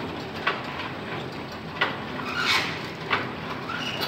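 Hookah charcoal packing machine running with a steady mechanical hum, broken by irregular sharp clicks and knocks, the sharpest a little under two seconds in.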